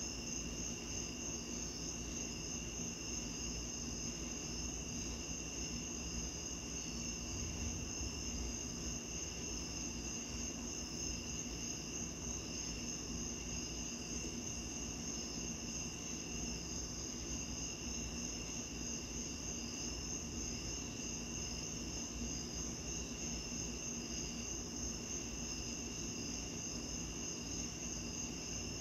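Night insects, cricket-like, trilling steadily in several high, fast-pulsing tones over a low, even hiss.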